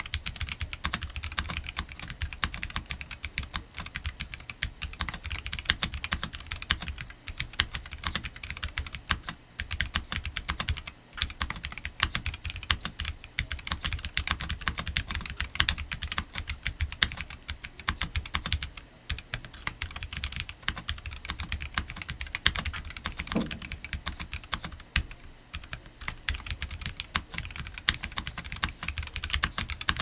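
Continuous touch-typing on an FL Esports Q75 gasket-mount mechanical keyboard with stock, factory-lubed JWK T1 tactile switches, a polycarbonate plate and DSA-profile PBT keycaps: a steady stream of keystroke clacks, with a couple of brief pauses.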